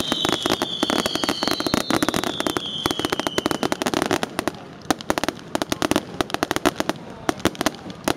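Fireworks going off in dense, rapid crackling and popping, with a high whistle falling slowly in pitch that fades out about three and a half seconds in. The crackling thins out and gets quieter in the second half.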